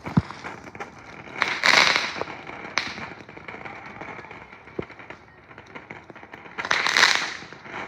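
Consumer fireworks going off: a few sharp pops, and two louder hissing, crackling bursts about 2 seconds and 7 seconds in.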